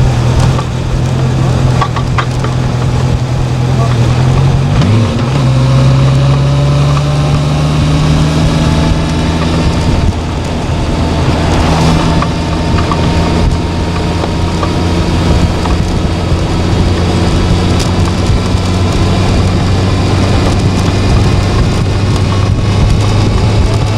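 A vehicle's engine running steadily on the move, its pitch shifting a few times and slowly rising as the speed changes.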